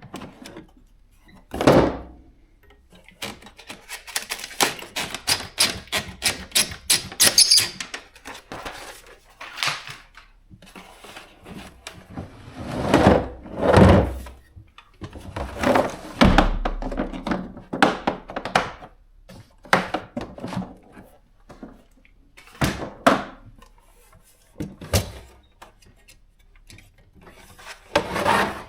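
Chevron/Olympia B12 manual typewriter being typed on: a fast run of key clacks, with scattered keystrokes and several heavier thunks in between.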